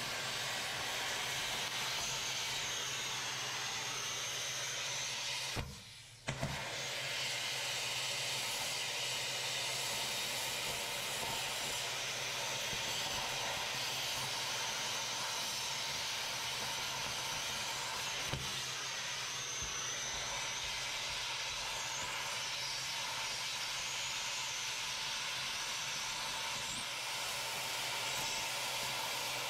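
Oxy-fuel cutting torch hissing steadily as it burns through steel suspension bracket metal, with a brief break in the hiss about six seconds in.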